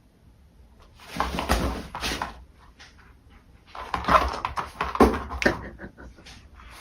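A dog making sounds in two short spells, about a second in and again about four seconds in.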